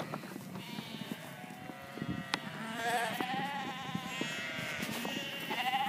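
A flock of ewes and lambs bleating, many overlapping wavering calls that grow louder about halfway through, with a sharp knock near the middle.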